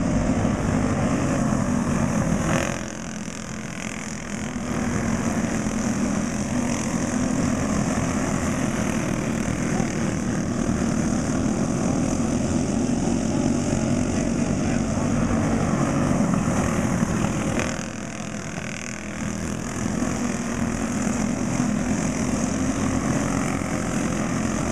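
Several racing go-kart engines running hard in a continuous, dense drone as the pack laps the dirt track. The sound swells as karts pass close by and drops briefly twice, about three seconds in and again about eighteen seconds in, as the field runs away down the track.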